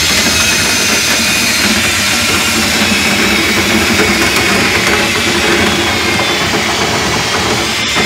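Ridgid cordless drill spinning a flexible dryer-vent cleaning rod and brush up a vent duct. The drill runs steadily, and its whine wavers slightly in pitch as the load on the brush changes.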